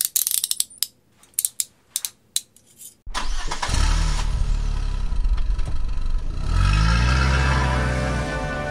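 A few clunks and knocks, then about three seconds in a golf cart's engine starts abruptly and runs loudly, revving up twice.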